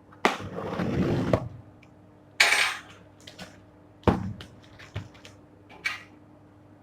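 A cardboard speaker box being opened by hand: a long scraping slide of cardboard and a short crisp rustle of packaging, then a few light knocks as the contents are handled.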